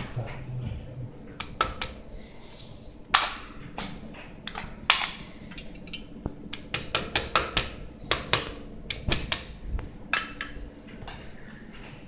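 Metal hand tools clicking and clinking as a cable lug is worked onto a wire: a run of sharp, irregular metallic taps, some with a short ring, coming quickest about two-thirds of the way through.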